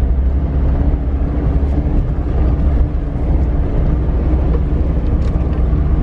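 Vehicle driving along a rough dirt road: a steady low rumble of engine and road noise.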